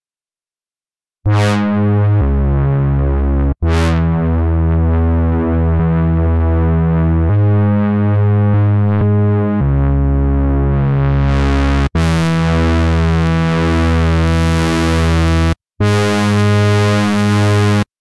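Cherry Audio Miniverse (Minimode) software Minimoog emulation playing a bass preset: a line of low, buzzy sustained synth bass notes, the pitch changing about every second. It begins after about a second of silence, grows brighter in the middle as the filter opens, and has a brief break near the end.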